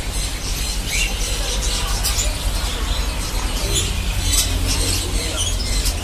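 Market background noise: a steady low rumble with small caged birds giving scattered short high chirps.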